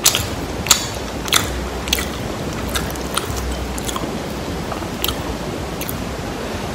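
Close-miked biting and chewing of crispy fried chicken: irregular sharp crunches, closest together in the first two seconds and sparser after, over a steady hiss.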